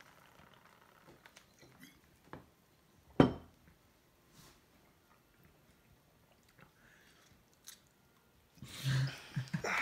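Drinking from a glass Coca-Cola bottle, then the bottle set down on a wooden table with a single sharp knock about three seconds in. Faint mouth and tongue sounds follow, and a loud vocal reaction without words near the end.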